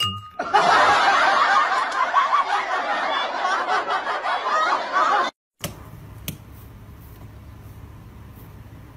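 Breathy, stifled human laughter for about five seconds, cutting off abruptly. After it comes quiet room tone with a single light tap.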